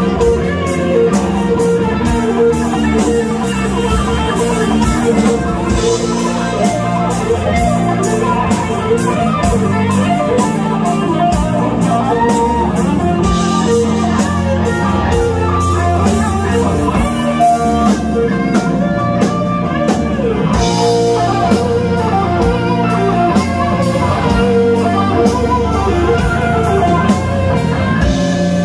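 Live rock band playing an instrumental passage: electric guitar over bass guitar and a drum kit keeping a steady beat.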